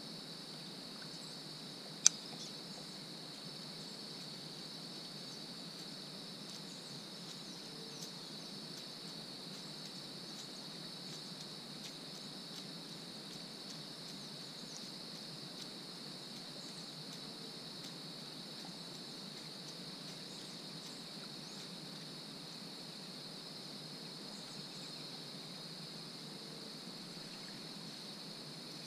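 Steady high-pitched insect chorus that runs on without a break, with one sharp click about two seconds in.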